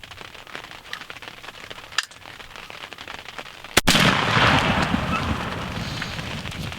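A single shotgun shot at a turkey about four seconds in, a sharp crack followed by several seconds of broad rushing noise that slowly fades. A faint click sounds about two seconds in.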